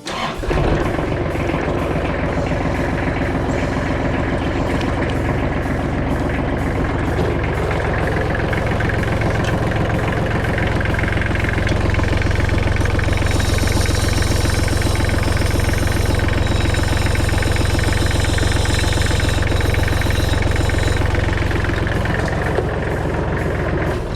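Kubota GL19 tractor's diesel engine running steadily, a little louder from about halfway through, with a thin high whine joining for several seconds.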